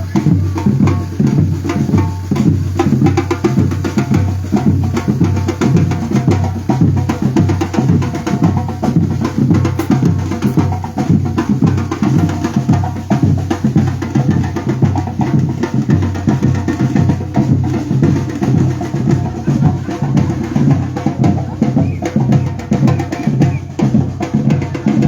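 Batucada drum group playing a steady, driving rhythm: deep drum pulses about twice a second, with sharper hits over the top.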